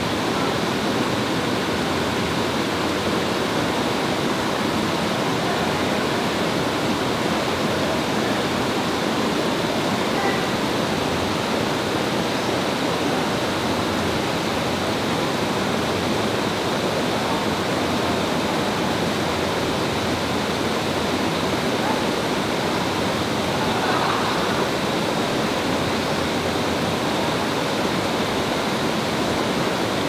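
Waterfall falling steadily: an even, unbroken rush of water.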